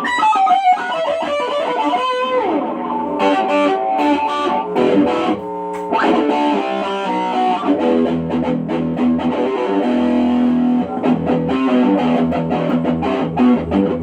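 Unbranded Telecaster-style electric guitar playing: a fast descending run with slides, then quick picked notes, then held chords, with some distortion or effects.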